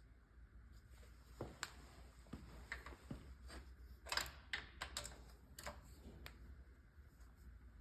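Scattered light clicks and taps of hand tools and metal parts being handled, the loudest a little over four seconds in, over a low steady hum.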